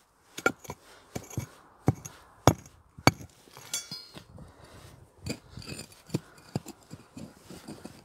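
Irregular sharp knocks and clinks of stones and rubble being dug out and moved beside a rock, with a short rattle of loose stones near the middle.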